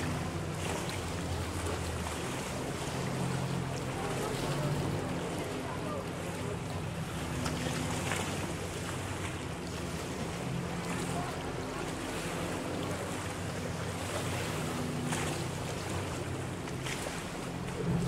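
Motorboat engine running at speed across the water, its low drone shifting in pitch as the boat circles, with water noise and wind buffeting the microphone.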